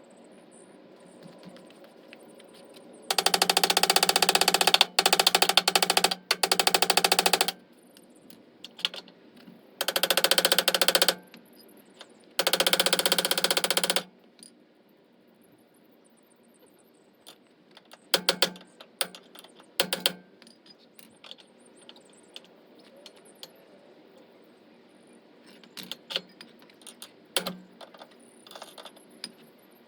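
Power impact wrench hammering in several bursts of a second or two each, then short metallic clinks of tools and parts being handled.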